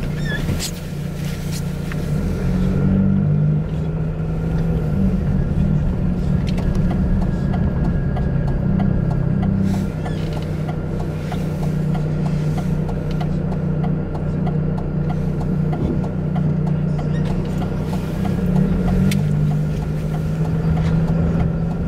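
Chevrolet Cavalier driving, heard from inside the cabin: a steady low engine and road drone that shifts in pitch a few times as the car changes speed.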